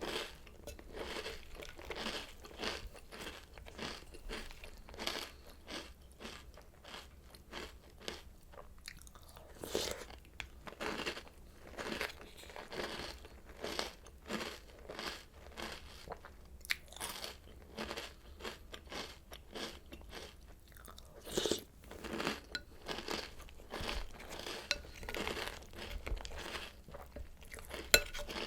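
Close-miked crunching and chewing of crunchy cereal, a rapid run of irregular crisp crunches with a few louder bites, around 10 and 21 seconds in and just before the end.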